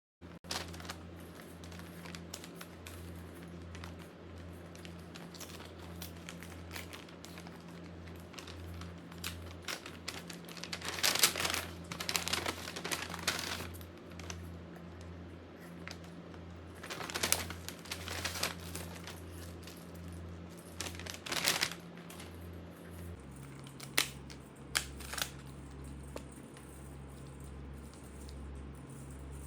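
Packaging being handled during an unboxing: crinkling and rustling in several short bursts, with a few sharp clicks near the end, over a steady low hum.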